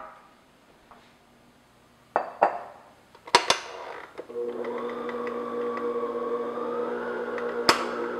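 Tilt-head stand mixer: a few sharp clacks as it is handled, then about four seconds in its motor starts and runs at a steady pitch, beating thick cake batter. One more sharp click near the end.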